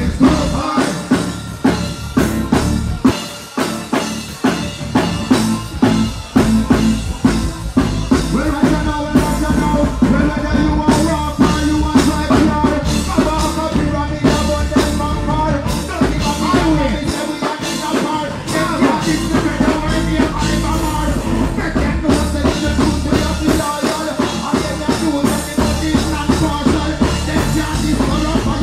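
Live reggae performance through a concert PA: a singer on the microphone over a band with a steady drum beat.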